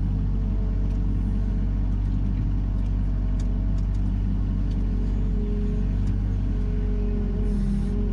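Mini excavator's diesel engine running steadily at a constant speed, a low even rumble with a few light clicks.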